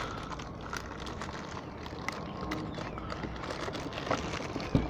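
Clear plastic bag crinkling and rustling, with the cardboard box being handled, as an amplifier wrapped in the bag is worked out of its box. A few sharper clicks come near the end.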